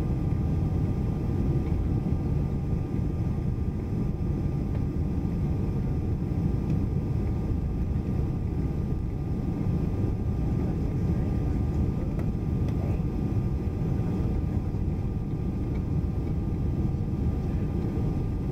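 Steady low rumble inside the cabin of a Boeing 747 rolling on the ground after landing: engine and airframe noise at an even level, with faint steady hum tones above it.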